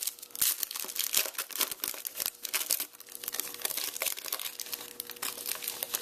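Foil wrapper of a trading-card pack being torn open and crinkled by hand, a dense, continuous run of crackling rustles.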